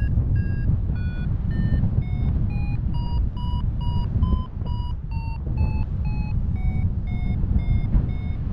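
A paragliding variometer beeping about two to three times a second, its pitch drifting up and down from beep to beep, the audio signal that the glider is climbing. Underneath is a loud, steady rumble of wind on the microphone.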